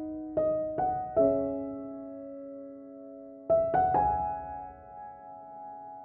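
Slow, soft background piano music: three notes struck in quick succession near the start and two more a little past halfway, each left to ring and fade.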